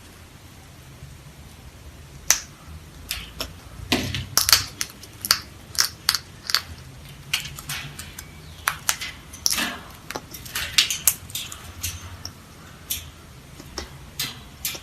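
A run of irregular, sharp clicks and snaps, a couple of dozen of them, starting about two seconds in and continuing nearly to the end.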